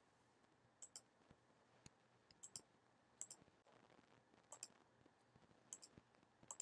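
Computer mouse button clicking faintly, mostly as quick press-and-release pairs about once a second, each click placing a line point in a CAD sketch.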